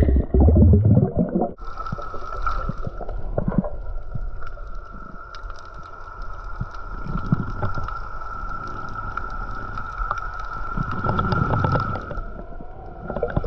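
Underwater sound through a diver's camera. A steady high whine of boat motors carries through the water, with scattered sharp clicks and muffled sloshing. The first second and a half is louder, low, muffled water movement as the hand handles things on the bottom.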